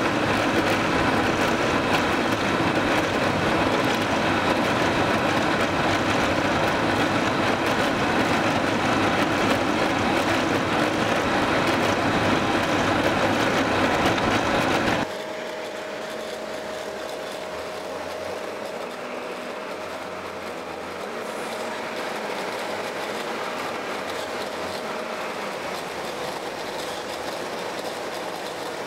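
Heavy quarry machinery running steadily and loudly for about fifteen seconds, then cutting off abruptly. It leaves a much quieter background with a faint steady hum that fades out about ten seconds later.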